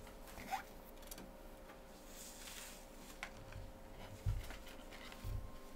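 Faint rustling and soft handling noises as wigs are pulled on and adjusted on the head, with two soft low thumps in the last couple of seconds over a faint steady hum.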